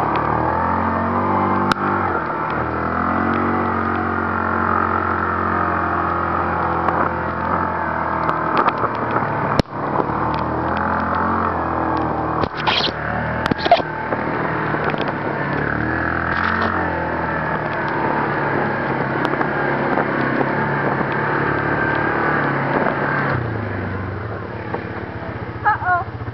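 ATV engine running under varying throttle on a sand trail, its pitch rising and falling, with wind noise and rattling. A sharp knock comes about ten seconds in, and the engine eases off near the end.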